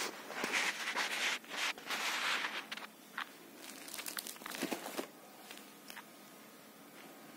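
Crinkling and rustling of a saree's plastic wrapping and fabric as they are handled, in several loud bursts over the first three seconds, then softer rustles around four to five seconds in before it dies down.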